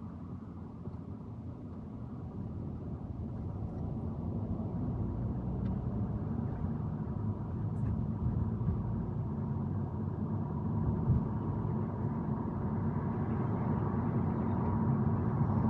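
Car engine and tyre rumble heard from inside the cabin, growing steadily louder as the car pulls away and gathers speed.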